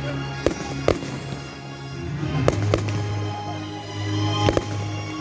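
Fireworks going off at a public display: about five sharp bangs, two of them close together near the end, over sustained music.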